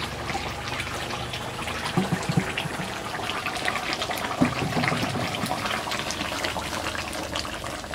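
Wood fire crackling in a clay stove while chicken curry bubbles in an iron karahi, with a few knocks as the pot and a steel bowl are handled.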